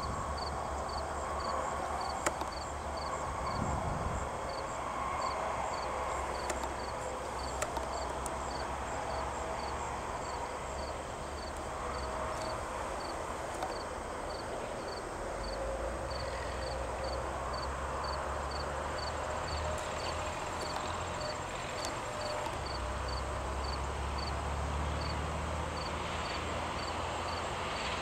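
Insects chirping in a steady, even rhythm of short high-pitched chirps, about two to three a second, over a low rumble.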